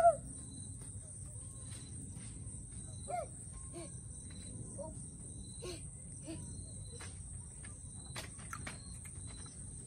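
Steady high-pitched insect drone, typical of crickets, with a few short chirping calls and faint scattered clicks.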